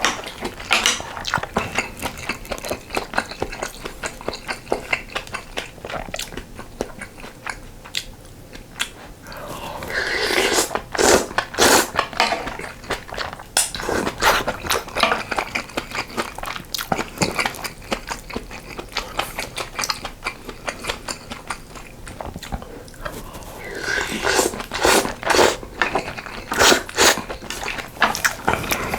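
Close-miked eating sounds: chewing and mouth smacks of sausage stew with ramen noodles and rice, mixed with small clicks. There are two louder, busier bouts of eating, about ten seconds in and again near the end.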